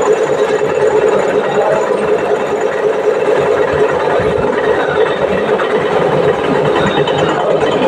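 Milling machine running steadily with a constant mechanical hum.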